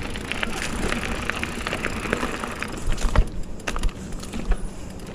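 Mountain bike riding along a dirt trail: rolling tyre noise with frequent small rattles and clicks from the bike. It eases off about three seconds in, with a few sharper knocks after that.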